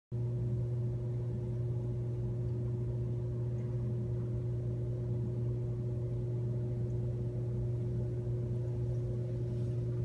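Steady low mechanical hum at a constant pitch, unchanging throughout.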